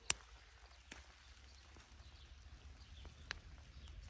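A sharp snap just after the start, then a few fainter clicks, as asparagus spears are picked by hand.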